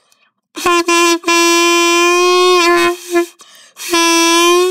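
A saxophone mouthpiece on its neck, without the body, blown to give one steady reedy tone: two short blasts, then a long held note, a pause, and a second held note near the end. The pitch sags slightly as each note ends.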